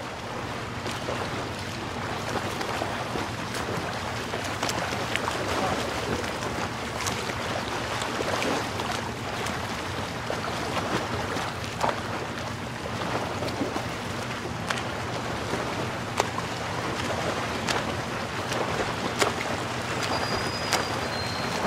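Steady rushing of breaking surf and wind, with scattered faint clicks and a low steady hum underneath.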